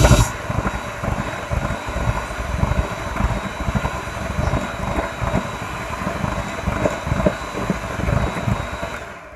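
Electric hand mixer running, its beaters churning thick cake batter in a glass bowl, with a steady high whine and uneven low thuds. It gets quieter just after the start and is switched off near the end.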